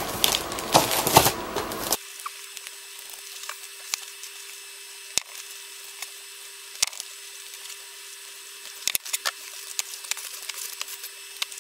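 Plastic shrink-wrap around a bundle of boxes crinkling as it is handled. It then stops abruptly, leaving a faint hiss with a thin steady hum and a few isolated clicks.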